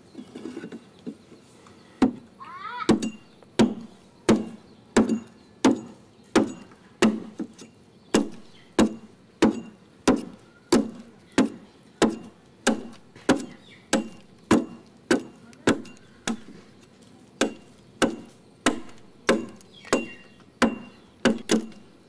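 Hand adze chopping into the wooden hull of a dugout canoe, hollowing it out with steady, even strokes at about two a second, starting about two seconds in.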